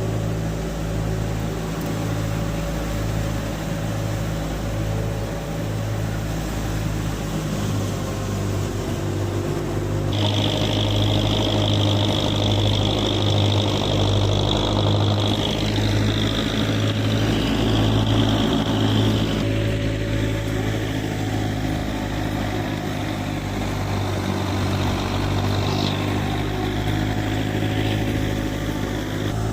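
Tractor engine running steadily under load, driving a wheat thresher, with a low drone that pulses regularly. About ten seconds in, a high whine joins it and then fades out some ten seconds later.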